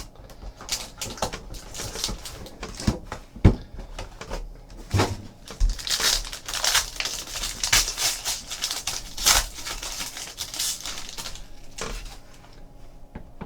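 A sealed trading-card hobby box being opened by hand: plastic wrapper crinkling and tearing, with scattered clicks and taps of cardboard and cards being handled. The crinkling is densest in the middle.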